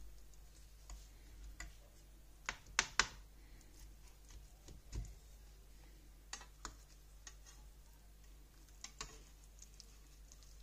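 Metal spatula and fork clicking and tapping against a frying pan while cutting through a frittata: scattered light clicks, the loudest a quick pair about three seconds in, and a soft thump around five seconds.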